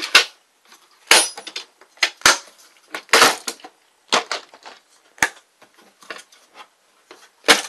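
Green plastic ammo cans being handled in a plastic storage tote: a string of sharp plastic knocks and clacks, about eight spread over several seconds, as an ammunition box goes into a can, the lid is shut and latched and the cans are shifted and set down.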